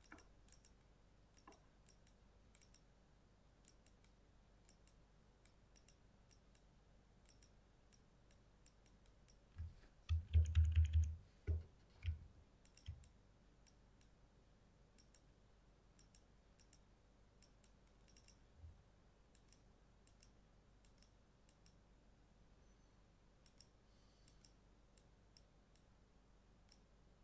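Faint, sporadic clicks of a computer mouse and keyboard during photo editing, with a brief cluster of low thumps about ten seconds in that are the loudest sound.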